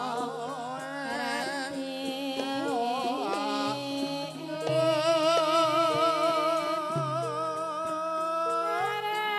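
A Javanese sinden singing with a wide, wavering vibrato over a gamelan ensemble, whose steady notes step along beneath the voice.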